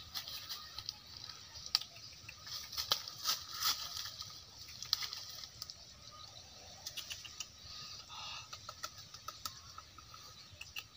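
Leaves rustling and dry leaf litter crackling as a person moves and handles a leafy branch: a run of small, irregular clicks and crackles.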